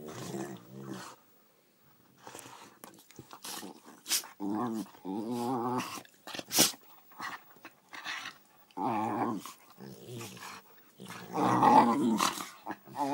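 Dogs play-fighting: growling in several bouts, louder and longer near the end, with a few short sharp sounds in between.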